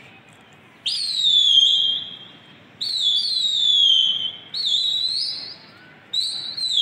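Four loud, shrill whistle blasts about two seconds apart. Each starts sharply and slides a little down in pitch before holding. This is a pigeon keeper whistling to his flock in flight.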